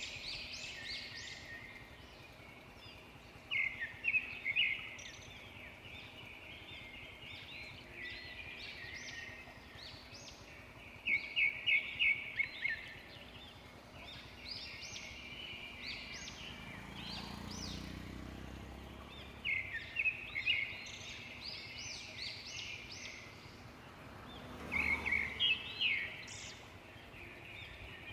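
Birds chirping in quick runs of short, sharp notes, in about four loud bouts, over a steady outdoor background. A faint low rumble swells and fades near the middle.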